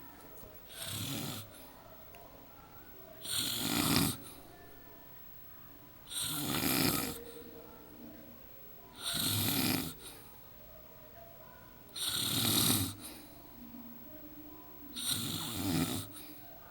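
A woman snoring in her sleep: six snores about three seconds apart.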